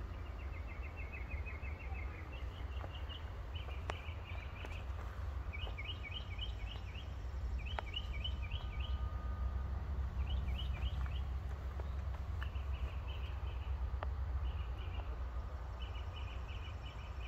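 A songbird singing repeated short, quick series of high chirps, about a second each with brief gaps, over a steady low rumble.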